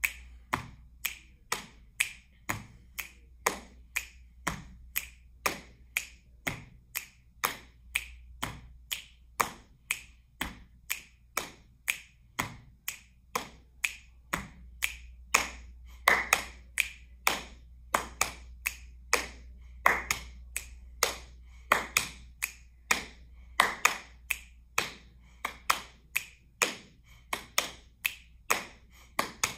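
Body percussion by one person in a steady rhythm: hand pats on the thighs and chest alternating with finger snaps, about two to three crisp strokes a second.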